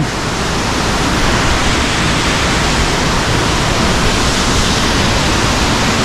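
Steady loud rush of water cascading down a rocky stream among boulders, close to a waterfall.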